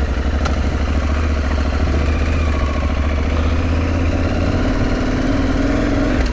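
Aprilia Tuareg 660's parallel-twin engine running just after starting, as the bike pulls away at low speed; its pitch rises gently over the last couple of seconds.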